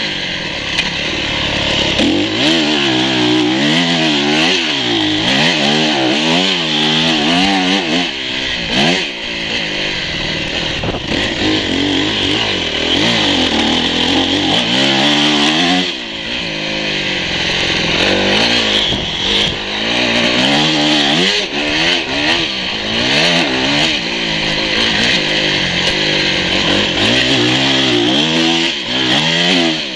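Dirt bike engine heard from on board, revving up and dropping back again and again as the throttle is opened and shut through the turns of a motocross track, the pitch climbing and falling every second or two.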